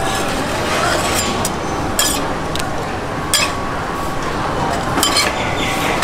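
Metal tongs and a metal scraper clinking and scraping against a steel crepe griddle while a crepe is folded: a handful of sharp clinks, about one every second or two, over steady background noise.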